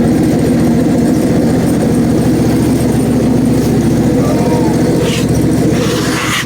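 Portable band sawmill's gasoline engine running steadily, with a brief scraping noise near the end.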